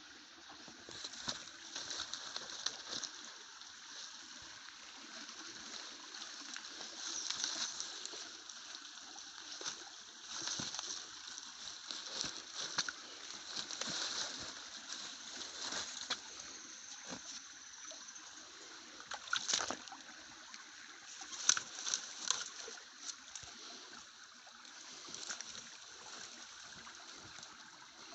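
Stream water trickling and splashing, with frequent small irregular splashes and clicks over the running water and a few sharper ones past the middle.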